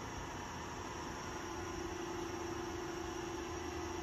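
Steady low hum and hiss of shop background noise, with a faint steady tone that comes in about a second in.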